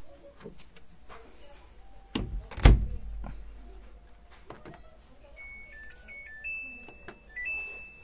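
A heavy thunk about two and a half seconds in as the Samsung DV90R6200QW dryer's door is shut. From about halfway on, the dryer's control panel plays a short tune of electronic beeps that step up and down in pitch, ending on two longer tones, as the machine is switched on and a cycle is set.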